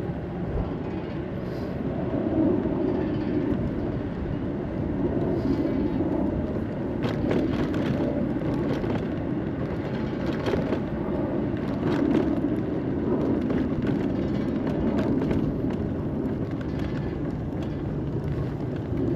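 Steady road and wind rumble from riding an NIU UQi+ Sport electric moped, with a few short knocks about a third and halfway in.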